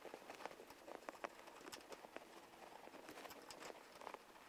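Faint, irregular small metal clicks and ticks of a T-handle hex key turning screws into an aluminium plate.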